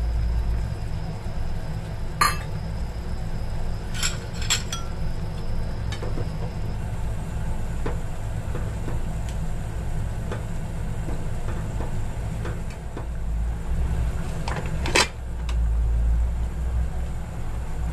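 Chicken wings braising in soy sauce in a frying pan, the sauce bubbling with a steady low rumble. A few sharp clicks of chopsticks knock against the pan, the loudest near the end.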